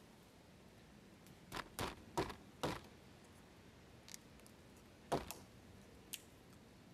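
A fixed-blade bushcraft knife shaving strokes along a split wooden stick, carving a feather stick: a quick run of four short cutting strokes, then a single stroke a few seconds later, with a couple of faint ticks between.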